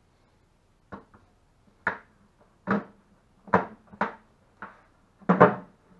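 A white PVC pipe knocking and scraping against a red 5-gallon plastic bucket as it is pushed and worked through a freshly drilled hole in the bucket: about eight sharp knocks under a second apart, the loudest near the end.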